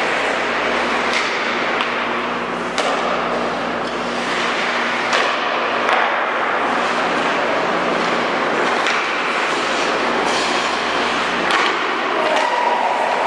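Ice hockey play: skates scraping across the ice, with sharp clacks of sticks on the puck and pucks knocking off the boards every few seconds. Under it runs a steady low hum.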